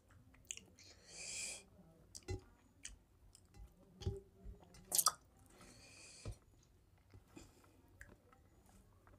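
Close chewing and lip-smacking of a mouthful of rice and mutton curry, with sharp wet mouth clicks. Two hissing breaths come through, one near the start and one about two-thirds of the way in, along with a few low thumps.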